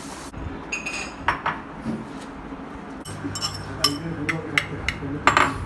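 Ceramic dishes and a metal fork clinking: a bowl taken out of a microwave, then a fork tapping and scraping as cooked noodles are tipped from a ceramic bowl onto a plate. A steady hiss, the microwave running, cuts off just after the start, and the loudest clinks come near the end.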